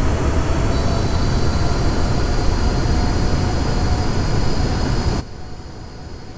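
Airbus A380's four jet engines with a steady high whine, under heavy wind rumble on the microphone. The level drops suddenly about five seconds in.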